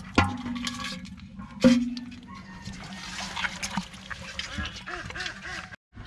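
Live fish thrashing and slithering in a metal basin, wet splashing with many small knocks against the metal. Two harder knocks, about a quarter second and a second and a half in, set the basin ringing briefly.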